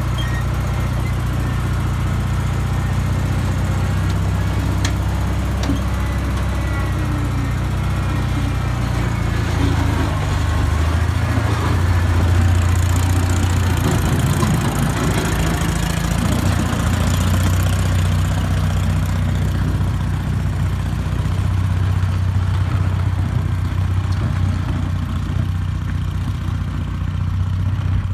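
Gehl 2600 skid-steer loader's engine running steadily as the loader drives. It gets louder for a stretch about a third of the way in, as the machine passes close, then eases as it drives away.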